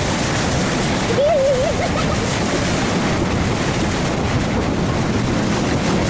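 Wind buffeting the microphone over the steady rush of water past a moving boat's hull, with the boat's motor running underneath. A short wavering voice-like sound rises and falls about a second in.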